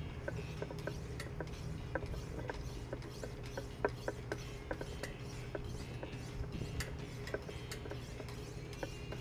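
Kitchen knife being sharpened on a Wicked Edge guided-rod sharpener: many light, irregular clicks and scrapes of the sharpening stones on the blade, over a low steady hum.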